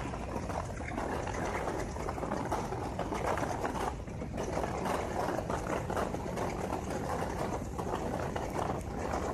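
Diesel-hauled passenger train running at speed, heard from an open coach doorway: a steady rumble and fast rattle of wheels on the track, mixed with rushing air.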